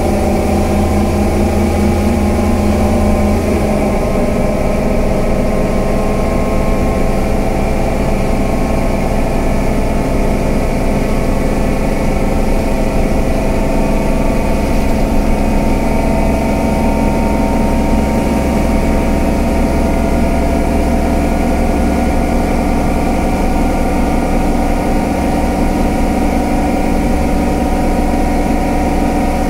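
Scania K320UA bus's five-cylinder diesel engine running steadily, its tones drifting slowly in pitch. A deep low hum drops away about three and a half seconds in.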